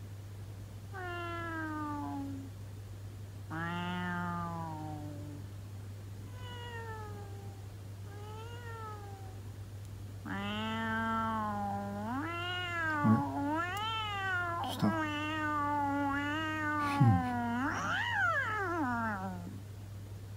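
Cat meows played through an Amazon Echo Dot smart speaker. Four short, separate meows come first; from about ten seconds in they give way to a longer run of wavering, angry-sounding yowls. A steady low hum lies underneath.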